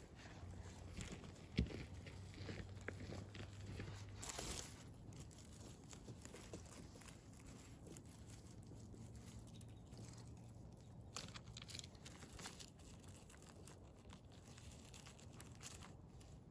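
Faint rustling and crackling of dry pine needles and grass as chanterelle mushrooms are picked by hand from the forest floor, with one sharper click about one and a half seconds in.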